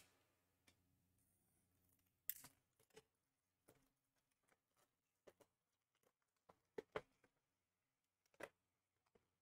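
Near silence, broken by a few faint, short clicks and rustles of trading cards being handled.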